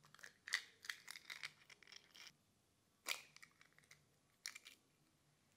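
Eggshells being cracked and pulled apart by hand: a run of small crackles over the first two seconds, a single sharp crack about three seconds in, and another short crackle near the end.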